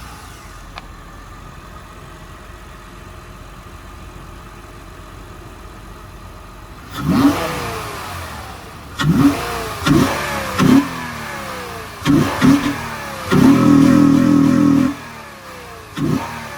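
Acura TL's V6 engine, breathing through a homemade PVC cold air intake, idles steadily. About seven seconds in, it is revved in a string of quick blips, with one rev held for about a second and a half, and the revs are loud.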